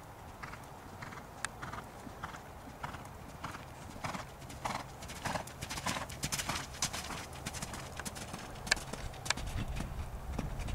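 Hoofbeats of a horse cantering on sand arena footing, in a steady rhythm of about two strides a second, with a few sharper clicks near the end.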